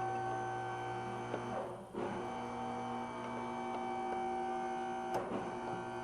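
Background music of sustained, held chords, changing to a new chord about two seconds in, with a short click near the end.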